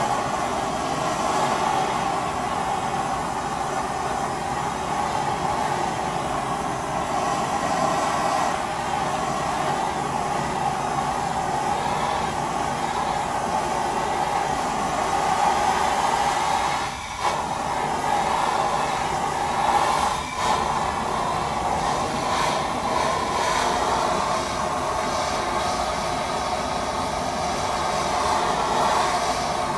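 Handheld blowtorch burning with a steady hiss, dipping briefly twice a little past the middle.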